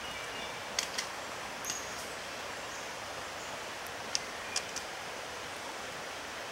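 Steady outdoor forest background hiss, such as wind or rain in the leaves. A few sharp taps come about a second in and again around four to five seconds in, and a couple of brief, faint high chirps are heard near the start.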